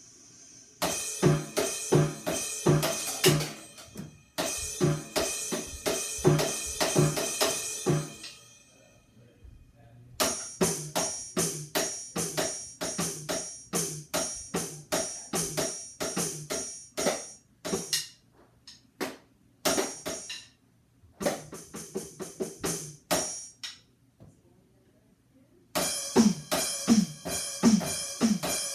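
Drums played in several runs of fast strokes separated by short pauses, with a bright jingling, cymbal-like sound over the hits. Near the end, low drum hits that drop in pitch.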